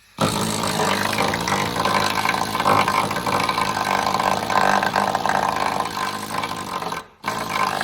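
A motor vehicle engine running loud and steady. It starts abruptly just after the opening and drops out briefly about seven seconds in before coming back.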